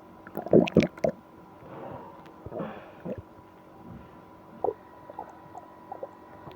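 A person's stomach gurgling: a quick cluster of loud gurgles about half a second in, softer drawn-out gurgling around two to three seconds, then a few short single gurgles. The stomach is upset and aching after eating ice cream.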